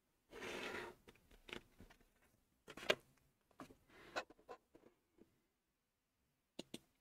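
Pen drawn along a plastic set square across paper in one short scratchy stroke, followed by several faint taps and clicks as the set square and pen are handled, the sharpest about three seconds in.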